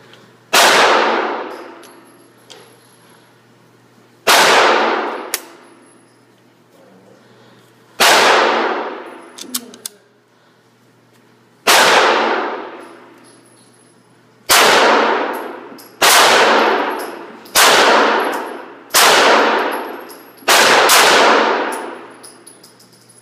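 Nine pistol shots, each a sharp crack followed by a long ringing echo in an indoor range. The first four come about four seconds apart, then five follow faster, about one and a half seconds apart.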